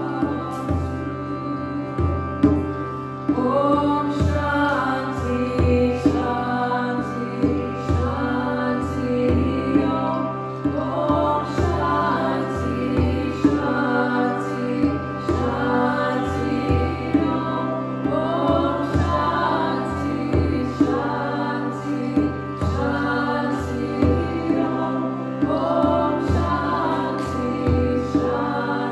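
A woman singing a repeating melodic phrase to a frame drum beaten in a steady rhythm, over a sustained drone. The sung phrase comes round about every two seconds.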